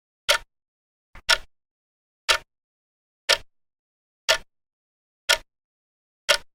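Vintage mechanical clock ticking, one sharp tick a second with silence between, seven ticks in all. A fainter click comes just before the second tick.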